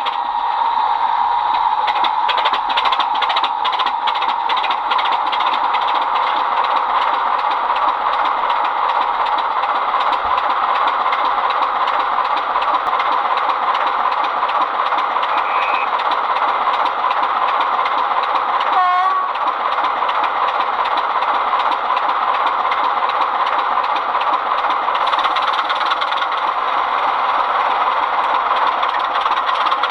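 Sound-fitted OO model Class 25 diesel locomotive running, its DCC sound decoder playing a steady diesel engine sound through the model's small speaker, thin with no deep bass.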